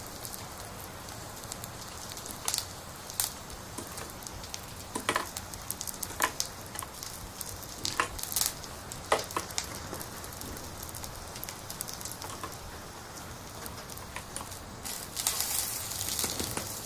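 Steady sizzling, frying-style crackle: a grill sound effect laid over a toy barbecue. Light plastic clicks and taps come through as toy food skewers are set on the toy grill rack. The hiss grows louder and brighter near the end.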